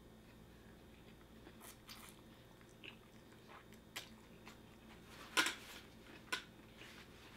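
A person chewing food close to the microphone: faint mouth sounds with scattered sharp clicks and smacks, the loudest about five and a half seconds in and another a second later.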